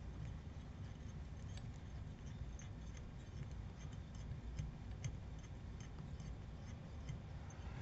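Faint, irregular light ticks as black 6/0 thread is wound onto a fly hook's shank with a bobbin holder, over a low steady room hum.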